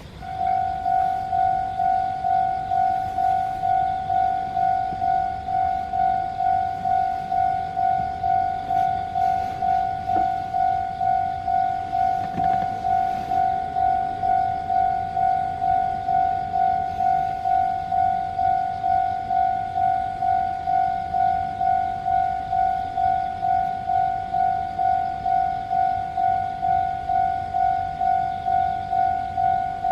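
Japanese railway level-crossing warning bell starting up and ringing in an even electronic 'kan-kan' pulse, about twice a second, the signal that a train is approaching and the crossing is closing.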